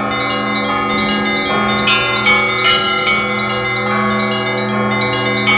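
Russian Orthodox church bells rung by a single bell ringer: quick, repeated strikes on the higher bells, about two or three a second, over the steady lingering hum of the larger bells.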